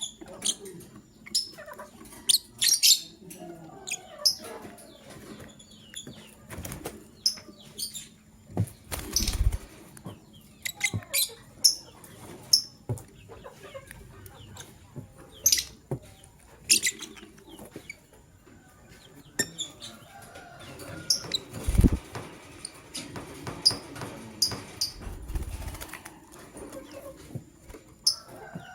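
Lovebirds chirping in short, sharp, scattered calls, with a few low thuds or flutters in between.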